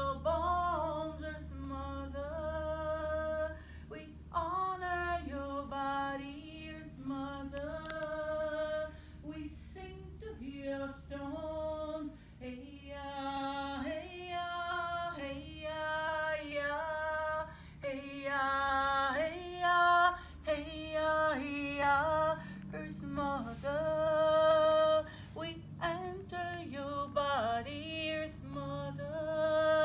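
A woman singing unaccompanied, a slow melody of long held notes.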